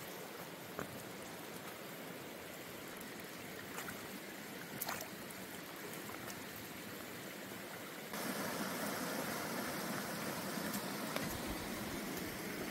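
Steady rush of running water from a small creek, stepping up louder about eight seconds in, with a few light knocks.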